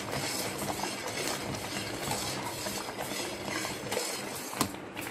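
Steel ladle stirring semolina cooking in jaggery syrup in a steel pot, with scattered clinks and scrapes of metal on metal, one sharper clink near the end, over a steady hiss.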